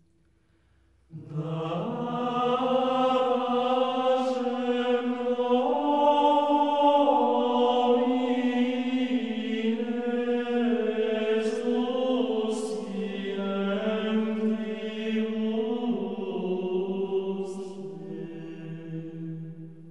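Slow background music of long, held sung notes in a choral chant style, stepping to a new pitch every couple of seconds. It comes in about a second in and fades near the end.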